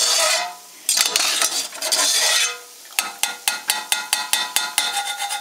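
Slotted metal turner scraping and sloshing through chicken broth in a metal stockpot. About three seconds in it turns to a quick run of metal clinks against the pot, about six a second, as the lifted chicken is drained.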